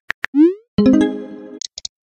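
Phone keyboard tapping clicks, then a short rising boing-like glide and a buzzy pitched electronic tone that starts loud and fades within about a second, as a text message is sent. A few light clicks follow near the end.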